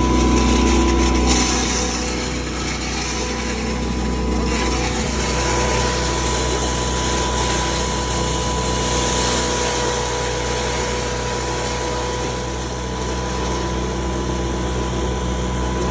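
Cattle feed grinder running steadily under load, grinding feed, with a continuous even hum.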